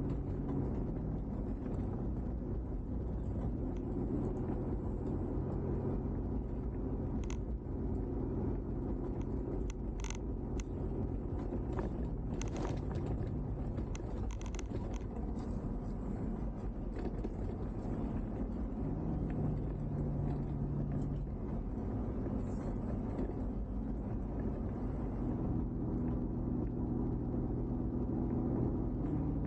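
Car driving on a road: steady engine hum and road rumble, with the engine note shifting in pitch several times as the speed changes. A few faint short clicks come in over the middle stretch.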